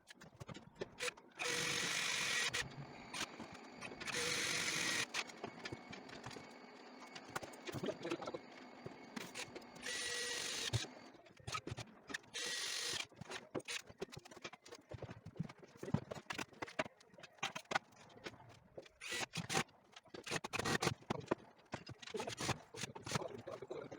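A power drill driving screws in four short runs of about a second each, with scattered knocks and clatter between them.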